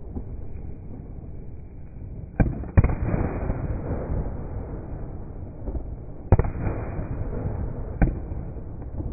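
Aerial fireworks bursting overhead: two sharp bangs close together about two and a half seconds in, another about six seconds in and a last one near eight seconds, each followed by crackle, over a steady low rumble.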